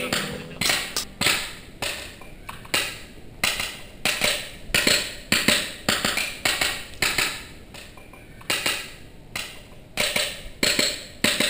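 A hand hammer striking a stone block in stone carving. A string of sharp, irregular knocks, one or two a second.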